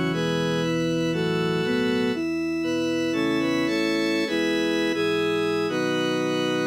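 Computer-played (MIDI) choral arrangement in a steady organ-like tone: sustained block chords with a moving bass line, the notes changing every half second to a second. It is a NoteWorthy Composer practice track for the bass part of a Christmas anthem.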